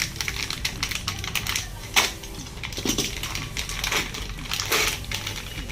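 Hard-drive packaging being handled: a run of crinkles and small clicks with a few sharper snaps, the loudest about two seconds in.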